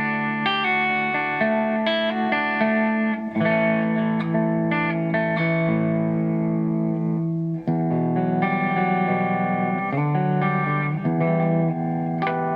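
Kiesel Osiris electric guitar on its beryllium bridge pickup, played clean through a Kemper profiler's Fender clean amp profile: chords ringing out with picked notes, and a brief break a little past halfway.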